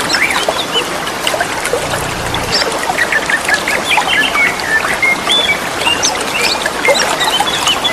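Green leafbirds (cucak ijo) calling back and forth in short whistles and chirps, over the steady sound of trickling water.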